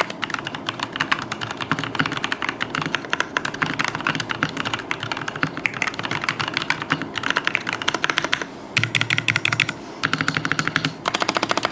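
Rapid, continuous typing on a Fantech Atom Pro mechanical keyboard with red (linear) switches, many keystroke clacks a second, with two brief pauses near the end.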